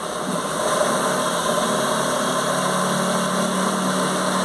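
Maruti 800's three-cylinder petrol engine idling steadily just after starting on a newly fitted battery.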